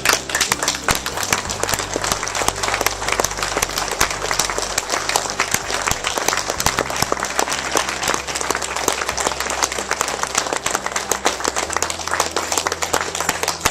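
A crowd applauding, with many people clapping fast and continuously.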